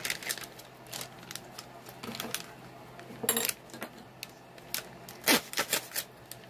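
Scissors snipping open foil packets of au gratin cheese sauce mix: scattered, irregular sharp snips and clicks.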